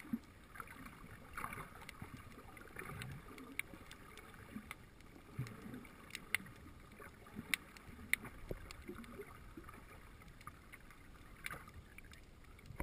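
Underwater ambience heard through a submerged camera: a low, muffled water rumble with scattered sharp clicks and crackles throughout.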